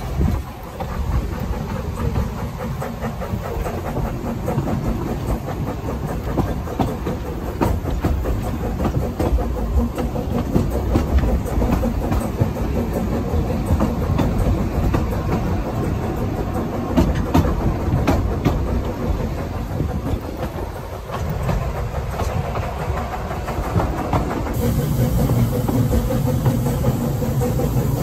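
Narrow-gauge steam train running along the line, a steady rumble with wheels clacking over the rail joints. Near the end a hiss and a steadier low hum join in.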